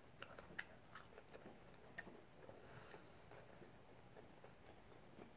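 Faint chewing of a mouthful of taco, with a few soft clicks and one sharper click about two seconds in.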